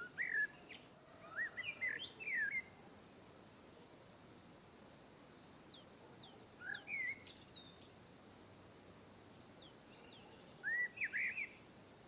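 Great tit calling. Three bursts of quick, sweeping chirps come at the start, in the middle and near the end, with thin, high, falling notes between them, over a faint steady hiss.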